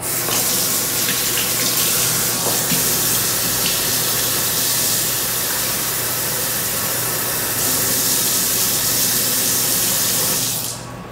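Kitchen faucet running a steady stream of warm water into a measuring cup, then shut off near the end.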